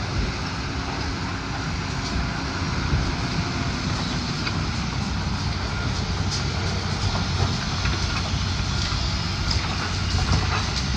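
Heavy diesel demolition machinery running steadily, with scattered knocks and clatters of debris.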